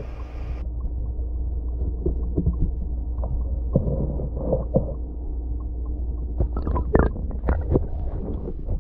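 Muffled water sound picked up by an action camera's microphone while the camera is under water in a basin: a steady low rumble with scattered knocks and clicks as a hand moves through the water and takes a coin from the bottom. The knocks are thickest near the end.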